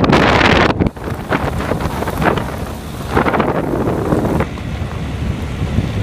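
Wind buffeting a phone microphone from a moving vehicle, over the low rumble of driving on a gravel road; the gusts surge and ease, loudest in the first second.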